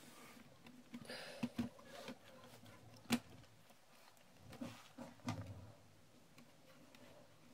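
Light clicks and knocks of an Asus F550Z laptop's plastic keyboard top case being handled and lifted. There is a cluster about a second in, one sharp click about three seconds in, and a few more soft knocks around five seconds.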